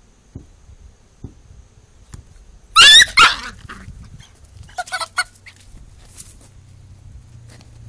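A puppy and a chicken tussling: one loud, shrill, wavering cry about three seconds in, then three short yelps about two seconds later.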